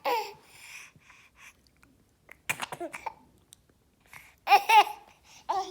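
A small child hiccuping in short separate bursts, with laughing and babbling sounds among them; the loudest burst comes about two thirds of the way in.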